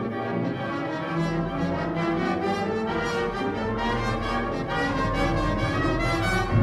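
Concert wind band playing a brass-led passage of sustained chords, with a deep bass note coming in about a second in.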